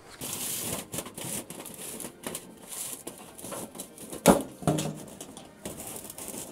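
Titanium stovepipe being fitted onto the collar of a small titanium wood stove: scraping and light metal clicks, with a sharp metal knock a little past four seconds in and a second knock that rings briefly.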